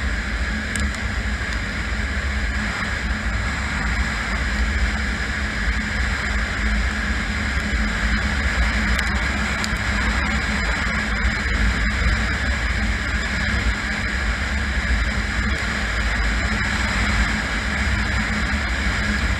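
Kawasaki KLR650's single-cylinder four-stroke engine running at a steady cruise of about 50 mph, mixed with a constant rushing rumble, with a few faint ticks here and there.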